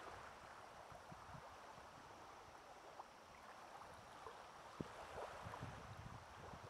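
Faint, gentle lapping of small waves on a pebble shore: a soft steady wash with a scatter of tiny crackles and one light tick about five seconds in.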